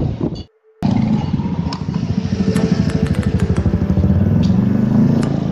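Motorcycle engine running with a quick pulsing beat, its pitch creeping up slightly near the end, after a brief drop-out about half a second in. A run of sharp clicks sounds over it in the middle.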